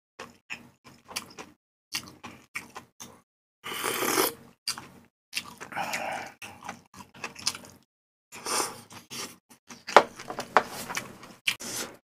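Close-miked eating sounds of malatang: irregular wet chewing clicks and smacks, with a few longer slurps as broth and noodles are sucked in.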